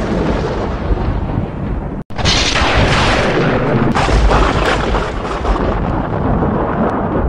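Cinematic logo-reveal sound effects: a dense, rumbling boom with crackling noise, cut by a brief silence about two seconds in. A loud hit follows, and it slowly fades.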